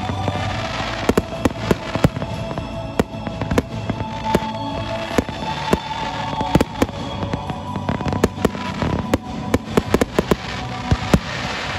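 Fireworks display: a rapid, irregular string of sharp bangs from aerial shells and comet volleys bursting, several a second, with music playing underneath.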